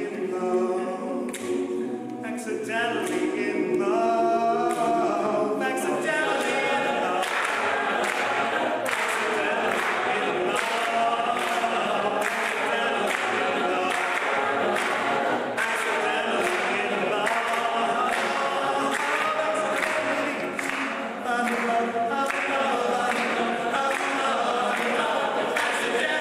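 Male a cappella group singing live: a lead voice over close-harmony backing voices, with a steady percussive beat. The backing grows fuller about six seconds in.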